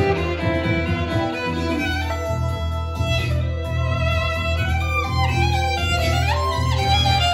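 Instrumental music: a melody over steady, pulsing low bass notes, with the melody sliding up and down in pitch near the end.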